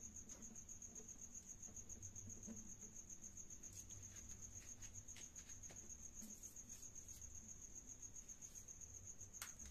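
Faint, steady, high-pitched insect trill that pulses rapidly and evenly, with a few faint clicks near the middle and near the end.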